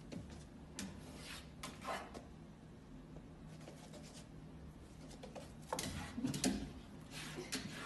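A dog's paws scratching and scraping at a wall: a few soft scrapes, then a louder flurry about six seconds in as it rears up and paws at it.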